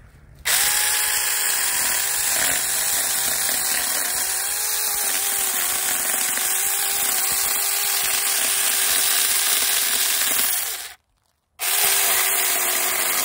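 Saker mini cordless electric chainsaw running and cutting into a tree stump, a steady high-pitched motor whine that wavers slightly as the chain bites the wood. It stops briefly about eleven seconds in and then runs again.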